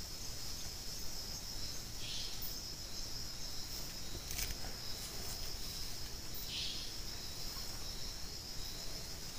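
Night insects trilling steadily in one continuous high-pitched drone, with a shorter, lower buzz coming in about every four and a half seconds and one faint click midway.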